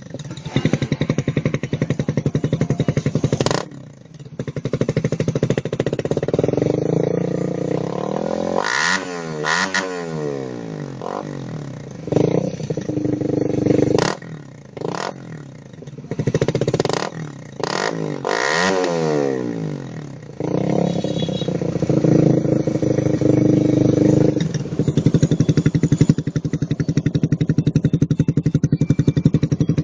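Honda CB150R's single-cylinder engine running through an aftermarket R9 Mugello slip-on muffler, being revved repeatedly. There are quick throttle blips and two longer revs that rise and fall, one about a third of the way in and one past the middle, between stretches of idle.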